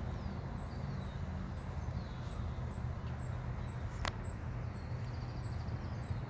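An insect chirping steadily and high-pitched, about three short chirps a second, over a steady low rumble. A single sharp click comes about four seconds in.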